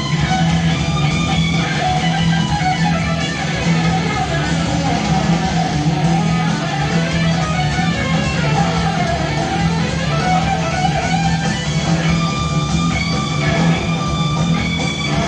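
Live rock band playing: electric guitar lines over a steady, repeated low bass note.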